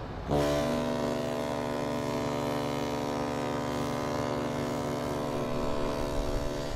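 Queen Mary 2's ship's horn sounding one long, steady, deep blast that starts suddenly just after the start.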